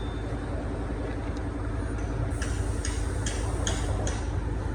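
Steady low engine hum, like a diesel idling. About halfway through, a run of light, sharp ticks begins, about three a second.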